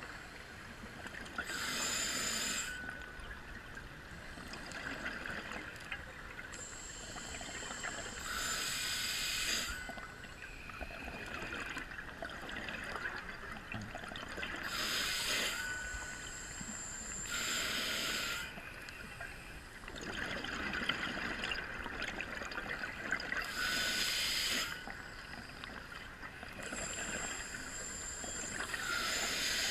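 A scuba diver breathing through a regulator underwater: a sharp hissing inhalation with a faint whistle about every six seconds, each followed by a longer rush of exhaled bubbles.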